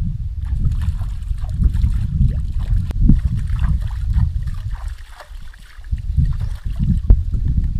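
Hands splashing and scooping water in a shallow rocky creek, with water trickling, over a steady low rumble that drops away briefly about five seconds in.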